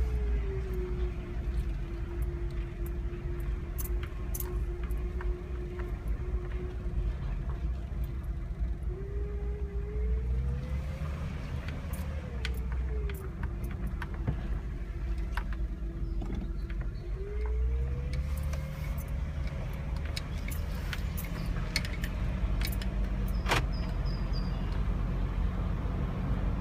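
Jeep Wrangler whirring noise: a steady whine over a low vehicle rumble. The whine's pitch drops, holds, rises and falls again several times, with scattered light clicks and rattles throughout.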